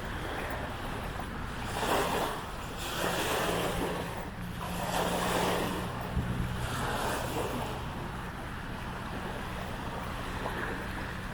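Small waves washing onto the lagoon shore in repeated swells, with wind buffeting the microphone and a steady low hum underneath.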